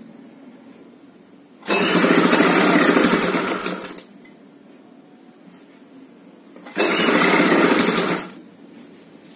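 Sewing machine stitching a fabric strip onto a satin blouse panel in two short runs, the first about two seconds long and slowing off at its end, the second a shorter burst a few seconds later.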